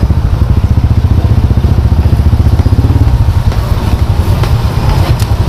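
A small engine running steadily with a rapid low chug.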